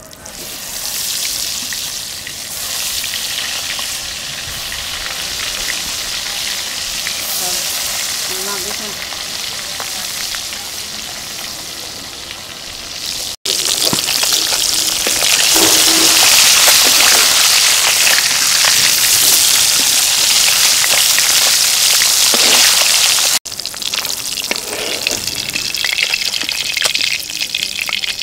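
Whole climbing perch (koi fish) sizzling loudly as they fry in hot oil in an iron karahi. The sizzle starts about half a second in, breaks off briefly twice, and is at its loudest in the middle stretch.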